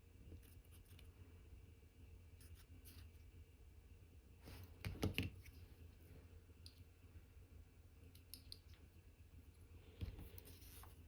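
Faint small metallic clicks and taps of watchmaker's tweezers and tools handling parts of an Omega cal.1109 movement during reassembly, with a louder cluster of clicks and scraping about five seconds in and a shorter one near the end.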